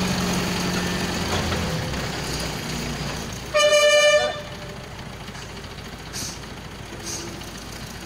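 A heavy engine running steadily, fading out after about two and a half seconds. About three and a half seconds in, a vehicle horn sounds once for under a second, the loudest sound here.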